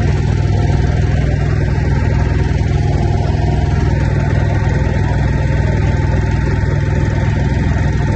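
Motorboat engine running steadily at a constant speed.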